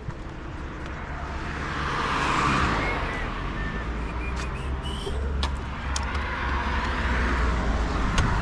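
Motor vehicles running: a steady low engine rumble under a wash of road noise that swells about two seconds in and again near the end, as vehicles pass.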